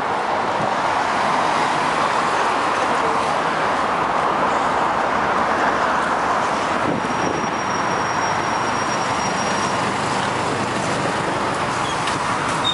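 Steady roadway traffic noise beside a LiAZ-4292 city bus at the stop. A faint thin high whine comes in for a few seconds about halfway through.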